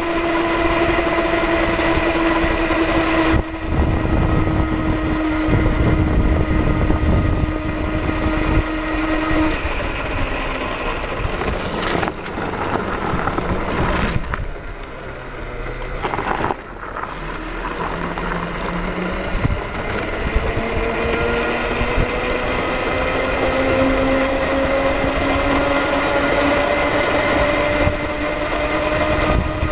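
Twin 48-volt, 1000-watt electric motors of a go-kart whining at top speed over the rush of the ride. The whine holds steady, sinking slightly, for the first third. It eases off and quietens around the middle, then climbs steadily in pitch over the last ten seconds as the kart speeds up again.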